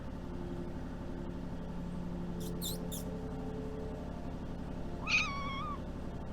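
A domestic cat meows once, briefly, about five seconds in, over a steady low hum, with a few faint short clicks a couple of seconds before.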